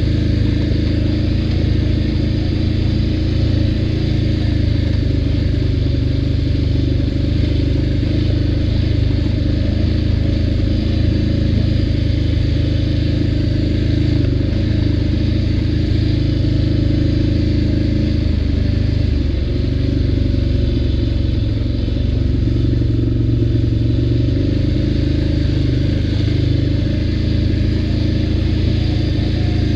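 ATV engine running steadily under way, with a slight change in pitch about two-thirds of the way through.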